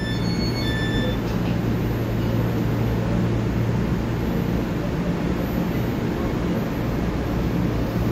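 Steady hum and rumble of a standing EMU3000 electric train at an underground platform, its doors open. A short run of repeated electronic beeps sounds in the first second.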